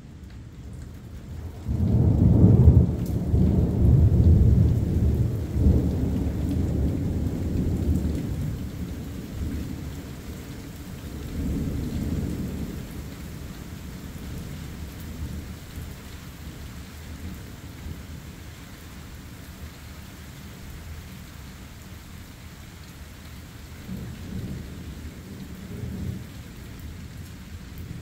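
Thunder rumbling over steady rain. A loud peal breaks in suddenly about two seconds in and rolls on for several seconds, swells again briefly, then fades, with a weaker rumble near the end.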